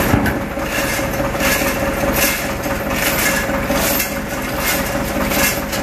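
A machine running steadily with a constant hum and repeated short pulses of hiss.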